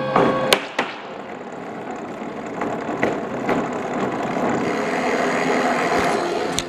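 A hand-spun rotating museum exhibit turning, with a steady rolling, mechanical noise that grows a little louder as it goes. A few sharp knocks come in the first second.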